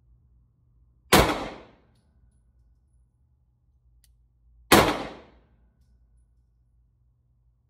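Two 9mm pistol shots from a Glock 43X MOS, about three and a half seconds apart, each ringing off briefly in the range booth.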